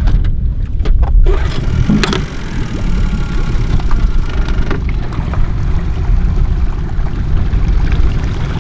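A motor engine running steadily with a heavy low rumble, and a few sharp clicks or knocks in the first second or so.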